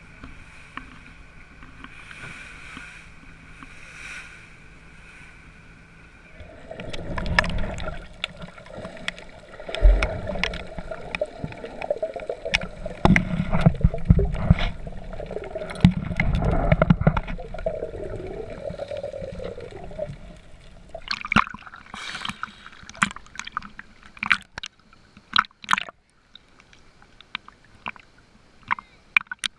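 A faint steady hum for the first six seconds, then a plunge into the sea about six seconds in: loud muffled underwater rumbling and bubbling. From about twenty seconds in, sharp scattered slaps and splashes of water against the camera at the surface.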